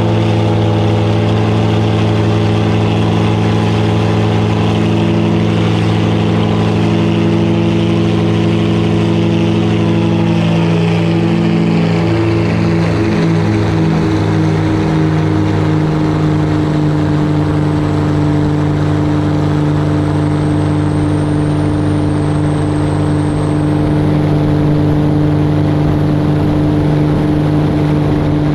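Helio Courier's geared six-cylinder engine and propeller running at takeoff power through the ground roll on grass and the lift-off. The engine note wavers around lift-off, about twelve seconds in, and then settles into a slightly lower, smooth climb tone.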